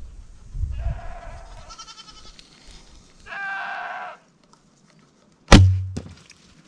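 Goats bleating twice, then a recurve bow shot about five and a half seconds in: a sharp snap of the string with a short low thump, followed half a second later by a smaller knock.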